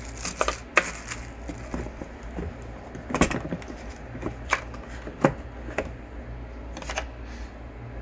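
Irregular sharp clicks and light knocks of small accessories being handled in a hard plastic tool carrying case, over a steady low hum.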